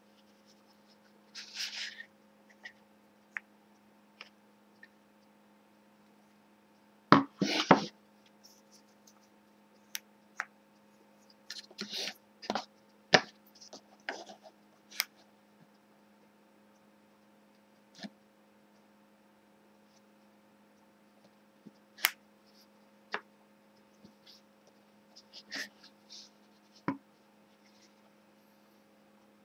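Wooden parts of a homemade sanding block handled and set down on a table: scattered knocks and clicks, with a loud clatter about seven seconds in and a run of knocks a few seconds later, over a faint steady hum.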